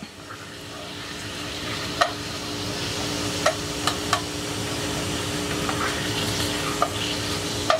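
Wooden spoon stirring and scraping the bottom of a frying pan of simmering stock, which sizzles steadily and slowly grows louder, loosening the browned bits stuck to the pan. A few sharp knocks of the spoon against the pan, around two and four seconds in.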